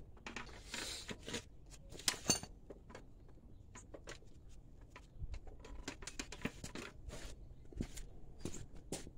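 Faint, scattered clicks, taps and brief rustles of hand tools being handled and set down on a concrete floor beside a car's front wheel.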